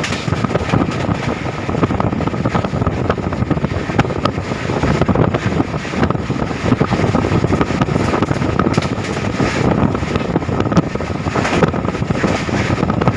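Train running at speed: a steady rumble of wheels on the track with many small rattling clicks, and wind on the microphone.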